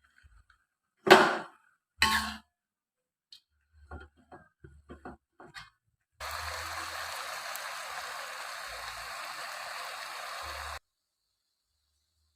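Two loud knocks and a few lighter clicks of kitchen utensils, then water running steadily from a tap for about four and a half seconds before it stops abruptly.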